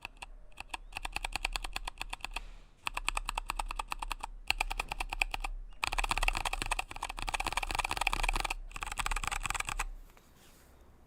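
Typing sound test on a Pain27 mechanical keyboard with Kailh Box Royal tactile switches in a wooden case: fast runs of key clacks in several bursts with short pauses, stopping about ten seconds in.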